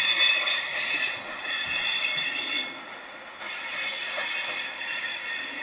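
Steel wheels of a slow-rolling freight train's covered hopper cars squealing against the rails, several high, steady screeches overlapping. The squeal eases about three seconds in and then builds again.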